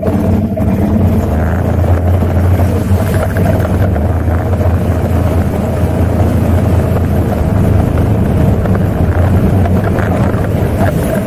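Suzuki 400 cc ATV engine pulling under load as the quad wades through a shallow creek, with water splashing and churning around the machine. The engine comes up sharply right at the start, then runs on steadily.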